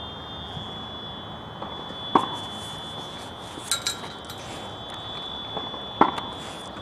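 Two sharp knocks about four seconds apart, with a short high chirp between them, over a steady high-pitched whine.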